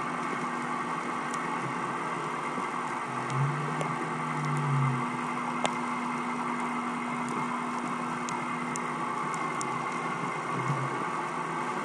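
Underwater recording: the steady hum of a boat's engine carried through the water, with faint scattered clicks. A lower tone swells up briefly twice, about a third of the way in and again near the end.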